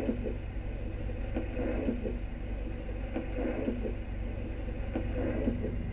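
Ion turntable's built-in speakers giving a steady low hum with scattered clicks and irregular noise, the stylus set down too near the record's outer edge so no music has begun.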